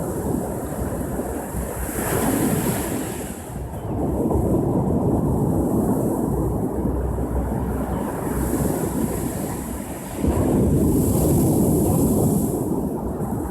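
Ocean surf: waves washing in and breaking on the shore in a continuous rushing wash that swells and ebbs, with a louder surge about ten seconds in.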